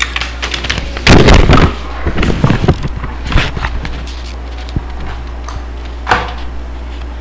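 Papers and envelopes handled on a meeting table close to a table microphone: a loud rustling bump about a second in, then scattered knocks and rustles, over a steady low electrical hum.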